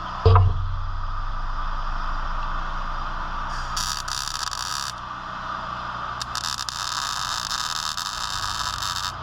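Welding arc crackling in two runs, the first about a second long and the second about three seconds, over a steady low machine hum. A brief thump comes just after the start.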